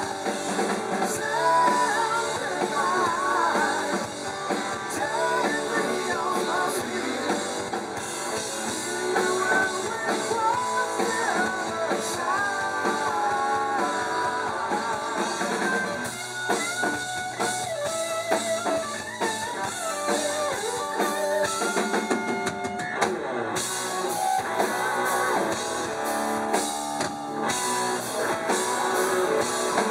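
Live rock band playing: electric guitar, bass guitar and drum kit, with a wavering melodic lead line over them.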